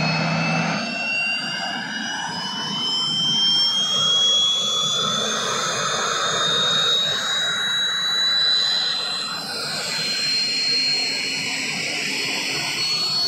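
Turbine engine and rotor of an army HAL Cheetah helicopter: a loud, steady whine that climbs slowly and evenly in pitch, over a continuous rushing noise.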